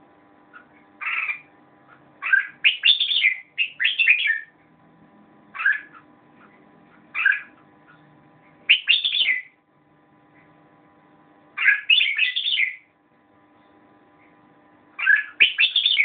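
Red-whiskered bulbul singing: short, bright warbled phrases, about eight of them, coming every second or two with brief pauses between, over a faint steady hum.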